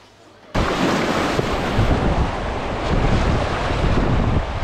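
Loud wind buffeting the microphone over rushing river water, starting abruptly about half a second in.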